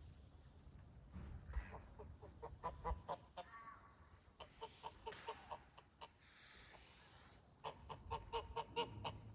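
White domestic goose on her nest giving three runs of short, quick, low calls, with a breathy hiss twice in the middle.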